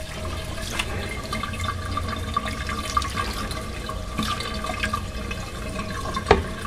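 Fixer solution poured from a glass vessel into a developing tray over a print, splashing and running steadily. A sharp knock comes near the end.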